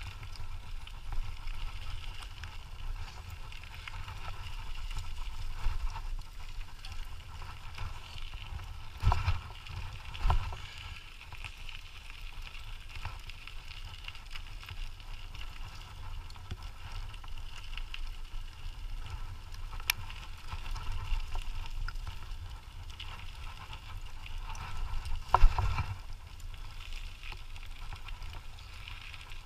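Dog-pulled kick scooter rolling along steadily, its wheels and frame giving a continuous rumble and rattle. A few sharp knocks break in: two close together about a third of the way in and a louder one near the end.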